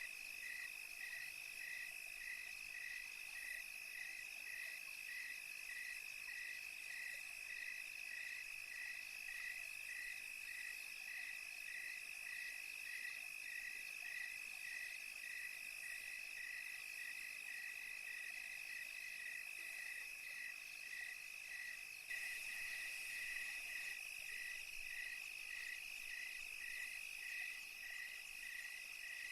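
Night chorus of crickets: a steady high trill, with a second call pulsing evenly about twice a second beneath it. The chorus gets a little louder about three-quarters of the way in.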